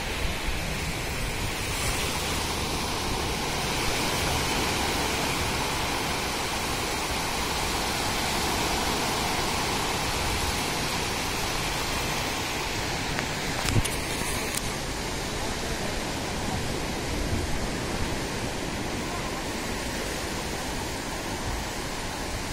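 Steady rush of surf breaking on a sandy beach, with one brief knock about fourteen seconds in.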